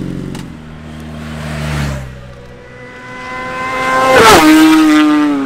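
A sport motorcycle flies past at speed. Its engine note rises as it comes on, is loudest about four seconds in, then drops sharply in pitch as it passes and pulls away. In the first two seconds a lower engine note from another bike fades out.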